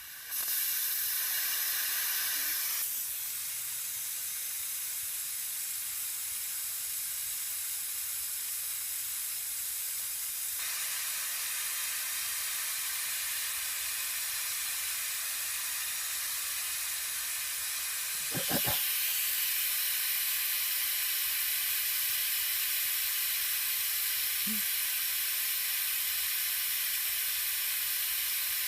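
Compressed air hissing steadily out of an air compressor tank as it is bled down. The hiss starts abruptly, eases a little about three seconds in, and grows louder again after a short click about two-thirds of the way through.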